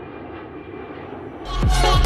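Airplane engine sound effect: a steady rushing engine noise. About a second and a half in, upbeat electronic music with a beat comes in over it.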